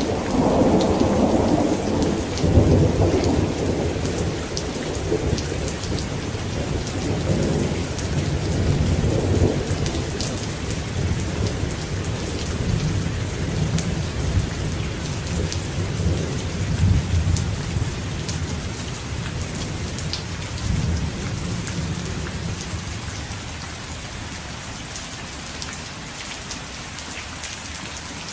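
Rain falling steadily, with drops ticking on a surface, under rolling thunder. The thunder rumbles loudest in the first few seconds and again around the middle, then dies away, leaving only the rain near the end.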